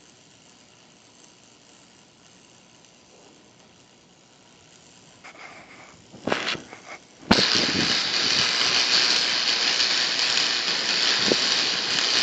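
Arc welding on a pipe: a few short scratchy starts about six seconds in, then the arc strikes a little after seven seconds and runs with a steady, loud sizzling hiss.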